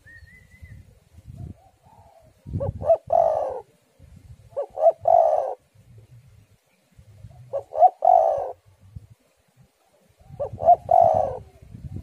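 Spotted dove cooing: four calls, spaced about two and a half seconds apart, each a couple of short clipped notes running into a longer rolling coo.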